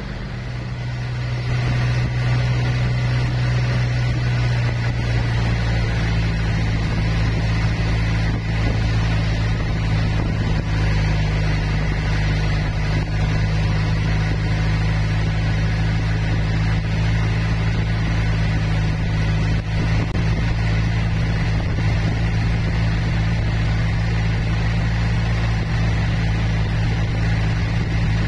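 Tour boat's engine running steadily, heard from on board: a low, even hum that fades in over the first couple of seconds.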